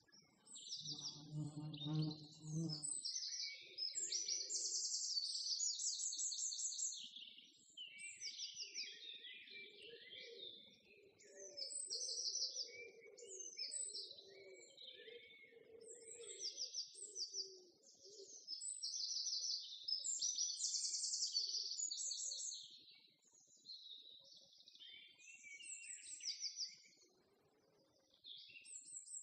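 Small songbirds chirping and singing, with fast high trills repeated in quick phrases. There is a brief low hum in the first few seconds.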